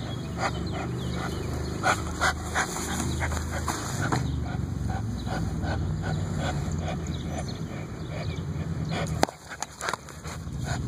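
Dog growling low and steadily while chewing and tugging on a torn rubber basketball, with irregular clicks and squeaks of teeth on rubber. The growl breaks off after a sharp click about nine seconds in, then resumes.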